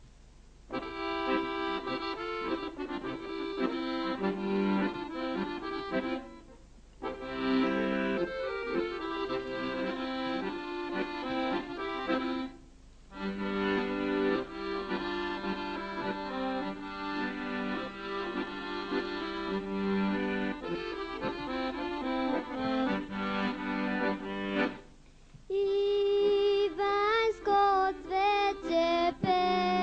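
Piano accordion playing a folk tune in phrases, with short pauses between them. Near the end a girl's voice starts singing along with it.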